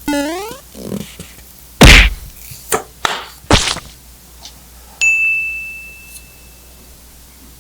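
A short rising squeak, then a few sharp knocks, the loudest about two seconds in. About five seconds in comes a clear high ding that rings and fades away over about two seconds.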